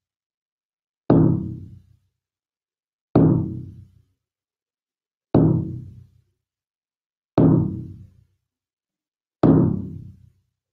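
Shamanic frame drum beaten in a slow, steady pulse: five strokes, one about every two seconds. Each stroke rings low and fades within about a second.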